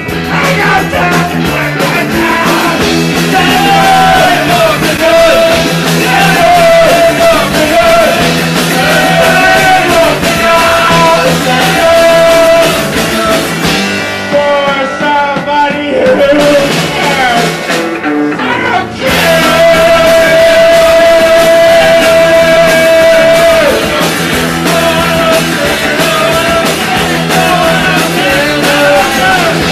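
Live punk rock band playing loud: drums, electric guitars and keyboard, with a singer. The band thins out about halfway through and comes back in full about five seconds later.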